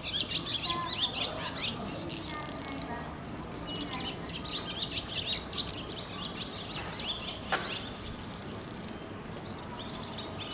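Small birds chirping, many quick short chirps coming in clusters, over a steady low background noise of the surroundings. A single sharp click comes about seven and a half seconds in.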